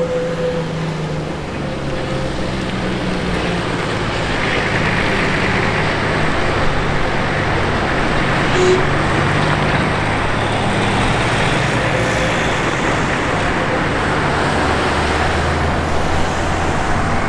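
A steam-hauled vintage train rolling slowly past on street track. A broad hiss of steam builds from about four seconds in, over the steady low hum of car engines running close by.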